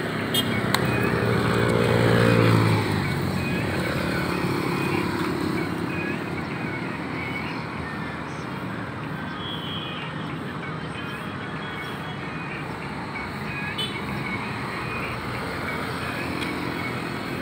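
Roadside traffic: a motor vehicle's engine passes close by in the first three seconds, getting louder and then fading away. After that comes steady street noise from traffic.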